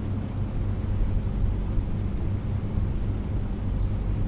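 A steady low rumble with a constant low hum under it, unchanging throughout.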